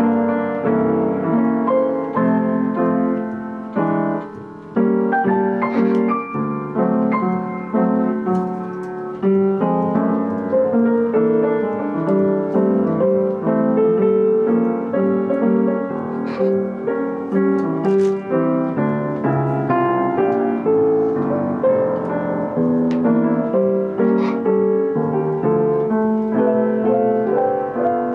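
Yamaha Disklavier piano playing a continuous piece of many notes, with a few brief sharp high sounds over it.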